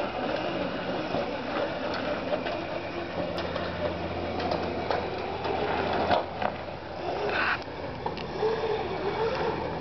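Small electric kids' ATV running, its motor and chain drive whirring and rattling, with a few sharp clicks around the middle. Near the end the motor's whine wavers up and down in pitch as the speed changes.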